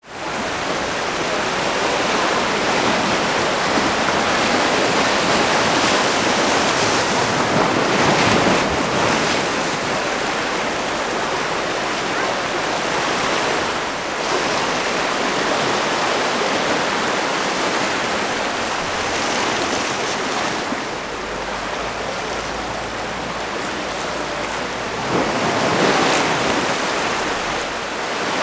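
Steady rushing noise of wind and open sea, swelling louder about eight seconds in and again near the end.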